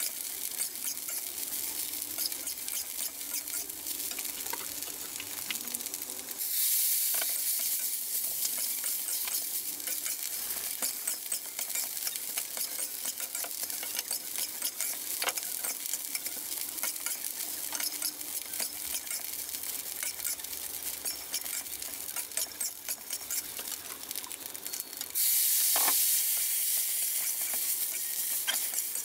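Glutinous rice sizzling in a hot steel wok while a metal spatula scrapes and tosses it, with many small clicks of metal on metal. Twice, about six seconds in and near the end, the sizzle jumps suddenly louder and then dies back, as a splash of water hits the hot pan.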